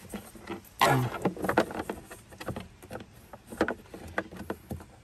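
Irregular plastic clicks and knocks from a car's glove box being worked loose by hand and with a flat screwdriver. The loudest knock comes about a second in.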